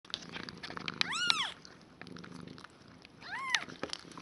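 Newborn kittens mewing: two short, high-pitched cries, each rising then falling in pitch, about a second in and again about three and a half seconds in, over steady purring.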